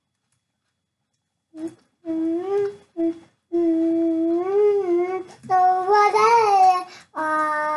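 A young child singing in short phrases of held notes without clear words, starting about a second and a half in, with the loudest, wavering note a little past the middle.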